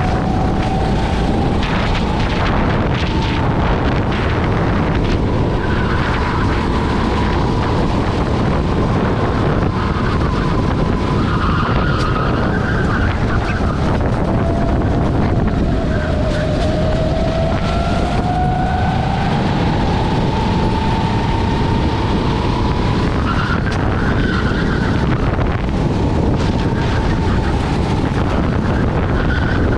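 Rental kart's engine running hard, heard from the driver's seat, its pitch falling and rising with speed through the corners, with a long dip about halfway through before it climbs again.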